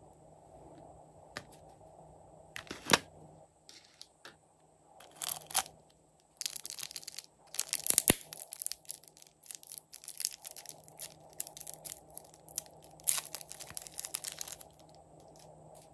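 Small plastic piping bag of slime crinkling and crackling as fingers squeeze and work it, in uneven bursts with a sharp snap about three seconds in; the crinkling stops shortly before the end.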